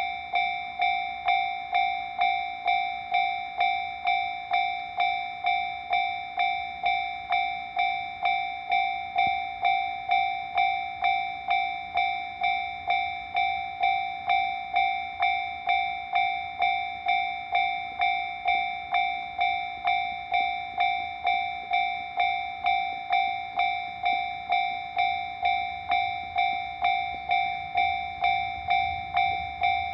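Japanese level-crossing warning bell ringing in an even, quick rhythm, about three dings every two seconds, each a bright ringing tone with higher overtones. A low rumble builds near the end as a train approaches.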